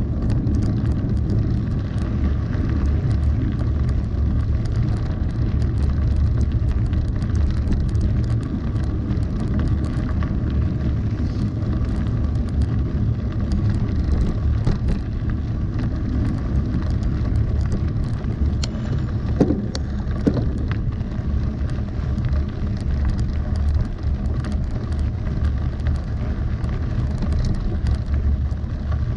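Mountain bike rolling along a gravel road: a steady low rumble of tyres on gravel and wind on the microphone, with constant small rattles and clicks from the bike and loose stones.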